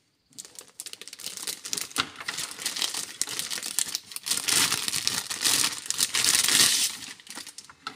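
Clear plastic bag crinkling and rustling as a boxed radio is worked out of its wrapping. It starts softly, gets loudest in the second half, and stops shortly before the end.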